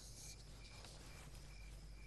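Near silence: a faint steady low hum, with a faint high chirp repeating about every half second.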